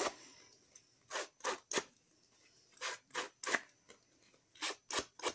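Scissors cutting through cardstock: about nine short snips, in three quick runs of three.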